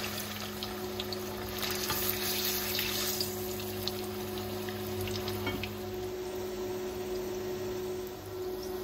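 Bananas deep-frying in hot oil: a steady sizzling and bubbling hiss with a few small pops, over a steady low hum.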